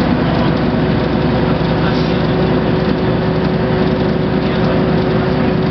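Ikarus-Zemun IK160P bus's diesel engine running steadily while cruising, heard from inside the bus, with a steady whine over the engine note.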